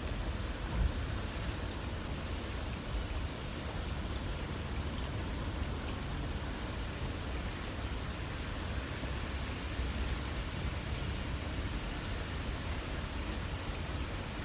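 Light rain falling steadily, an even hiss of drops over a low, steady rumble, with one brief soft thump about a second in.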